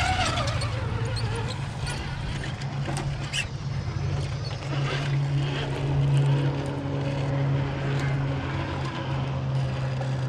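1.9-scale RC rock crawler's electric motor and drivetrain whirring steadily as it crawls over granite, getting louder about halfway, with a few short clicks and scrapes from the tyres on the rock early on.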